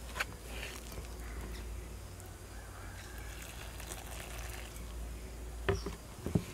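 Hot water poured onto flour in a metal bowl and stirred in with a utensil, with a few sharp clinks of the utensil against the bowl, the loudest two near the end, over a low steady hum.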